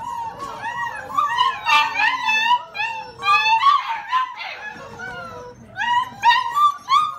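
A litter of young blue Great Dane puppies whining and yelping together, many overlapping high-pitched cries that rise and fall.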